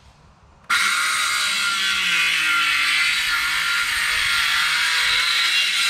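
Cordless power tool, fitted with a fresh battery, running under load in wood. It starts suddenly about a second in and runs steadily for about five seconds. With the fresh battery it has full power, which the user finds "much better".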